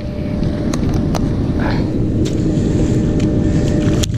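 Steady low rumble of wind buffeting the action-camera microphone, with a few light clicks.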